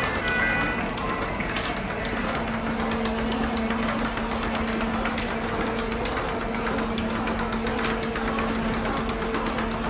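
Wheels of two rolling suitcases rumbling along a walkway floor, with many quick irregular clicks, over a steady low hum.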